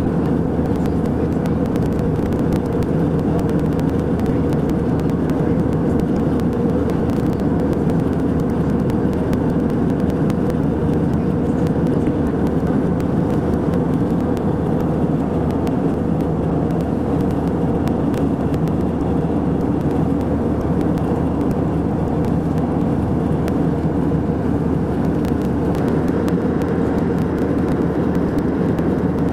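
Airliner cabin noise in cruise flight: jet engines and airflow heard from inside the cabin as a steady low rumble that doesn't change.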